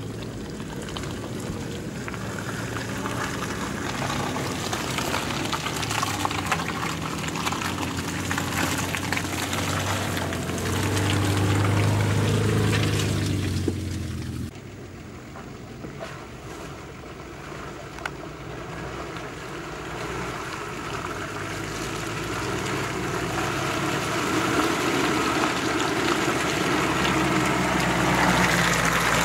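Off-road 4x4 SUVs grinding along deep muddy ruts, engines running under load with mud and water sloshing under the tyres. The first vehicle's engine grows louder as it nears and then cuts off sharply about halfway through. A second SUV's engine then builds up again as it approaches near the end.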